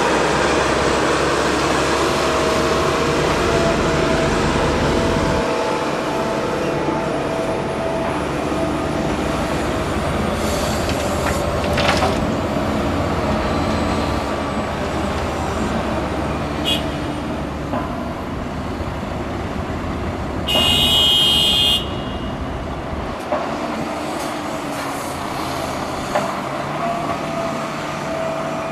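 Diesel engine of a Hitachi Zaxis 350 excavator running under load while it loads a dump truck, with a few clanks and knocks of soil and rock landing in the truck's steel tipper body. About twenty seconds in, a horn sounds once for about a second and a half.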